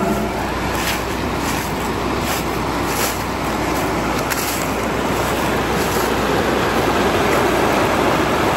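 Flood-swollen creek water rushing over a low stone dam and churning through rocks below it, a steady rushing noise.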